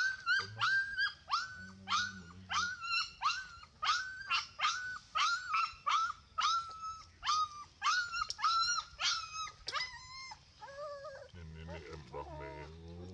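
Puppy whining in a quick series of short, high squeals, about two a second, while nursing on the mother dog. After about ten seconds the calls turn lower and fainter.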